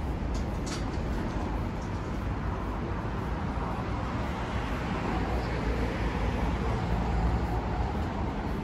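Steady city street traffic noise, a continuous low rumble of passing vehicles, with a couple of short sharp clicks shortly after the start.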